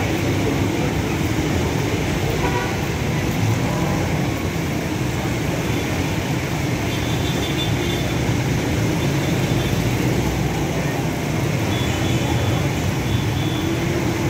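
Busy street traffic of motorcycles, motor tricycles and jeepneys: a steady hum of engines and tyres, with short horn toots a couple of times.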